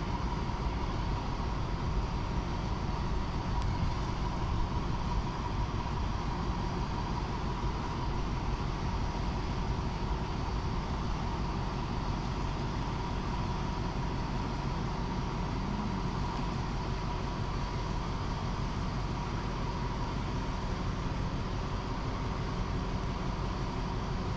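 A diesel locomotive engine runs steadily: a low rumble with a thin steady whine above it.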